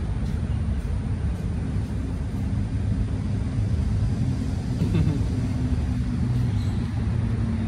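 Steady low mechanical drone with a constant pitched hum, of the kind that traffic or a nearby running engine makes.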